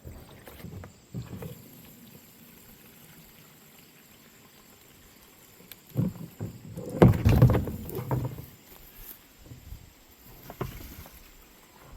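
Scattered knocks, clunks and rattles of hands and tools working on a garden tractor, with a louder run of clattering knocks about six seconds in that lasts a couple of seconds.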